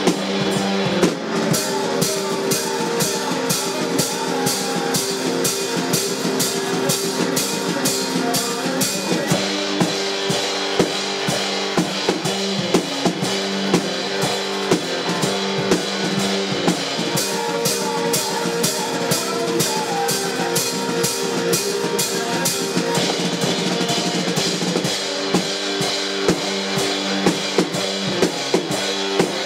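Live blues-rock instrumental: an electric guitar riff over a drum kit keeping a steady kick-and-snare beat, with no vocals. The guitar part changes about nine seconds in and again a little after twenty seconds.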